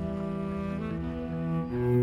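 Instrumental background music with low, held notes that change pitch every half second or so.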